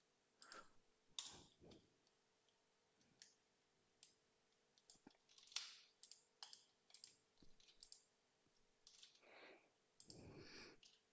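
Faint, scattered clicks of typing on a computer keyboard.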